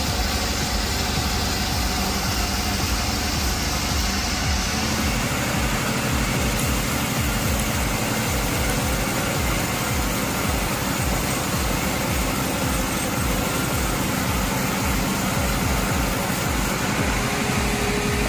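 A heavy engine or machine running steadily, with a low, even pulse that changes character about five seconds in.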